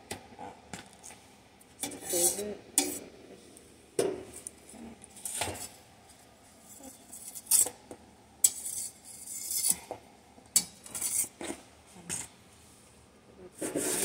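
Metal kitchenware and dishes being handled: irregular clinks and knocks with several short scrapes, and a longer scrape a little past halfway.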